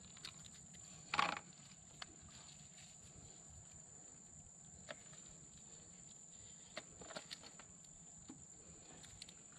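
A hand rummaging through a heap of wet seaweed, picking out small shrimp: one louder wet rustle about a second in, then scattered soft clicks and rustles, over a steady high-pitched whine.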